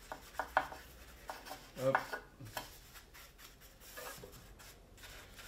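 A few light clicks and knocks as things are picked up and set down on a workbench, the loudest about two seconds in.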